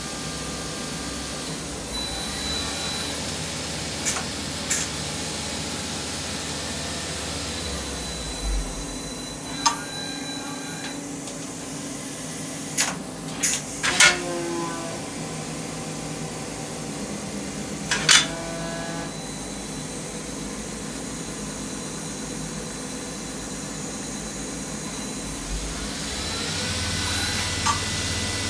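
Hardinge CHNC III SP CNC chucker lathe running under power: a steady mechanical hum, with rising and falling whines as the slides move and a few sharp clunks as the tool turret moves and locks in position. The deep part of the hum drops away about a third of the way in and comes back near the end.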